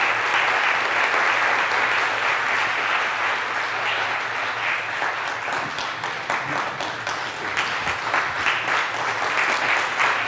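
Audience applauding, a dense, steady clapping that holds throughout.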